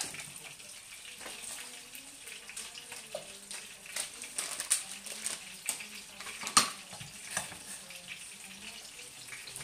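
Tomatoes frying in a pan with a low, steady sizzle, under scattered clinks and knocks of kitchen utensils being handled; the loudest knock comes about six and a half seconds in.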